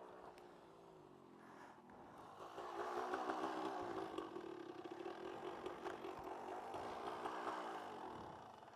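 Almost quiet for the first couple of seconds, then a 1990s KTM two-stroke dirt bike engine running faintly at low revs, its pitch wavering slightly.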